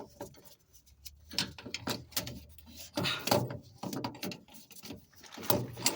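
Irregular clicks and knocks of a wrench being fitted to and worked on a fuel filter housing to tighten it.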